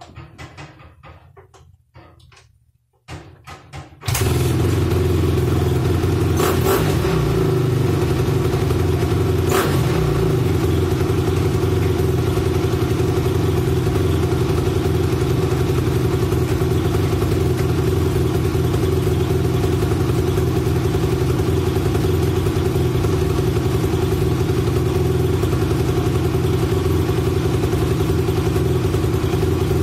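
2004 Honda CRF250 dirt bike's single-cylinder four-stroke engine kick-started, catching about four seconds in, then running steadily at idle. This is a start after a top-end rebuild and a repair of the carburettor's accelerator-pump squirter jet.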